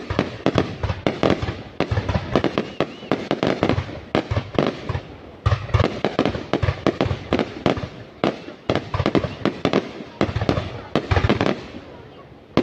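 A dense barrage of fireworks going off, many sharp bangs a second, with a brief lull about five seconds in.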